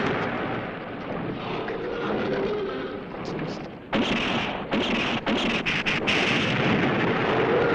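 Sound effects from a 1970s Japanese tokusatsu TV show: a handheld ray gun firing and explosions, with a sudden louder, choppy stretch of blasts from about four seconds in.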